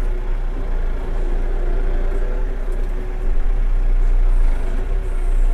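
Kioti RX7320 tractor's diesel engine running steadily, heard from inside the tractor cab.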